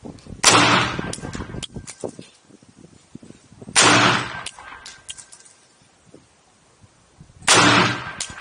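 Three shots from a Springfield Armory Saint AR-15 rifle, about three and a half seconds apart, each followed by a short echo.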